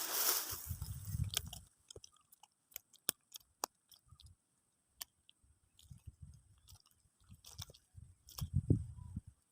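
Water sloshing, stopping about a second and a half in, then scattered small clicks and soft low thumps of handling, with a louder cluster of thumps near the end.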